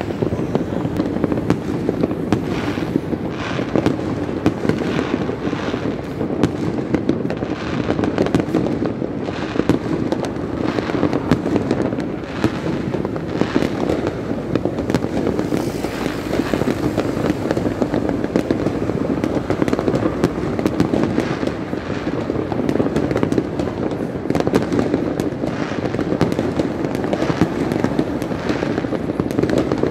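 Many fireworks and firecrackers going off at once: a dense, unbroken crackle of overlapping pops and bangs.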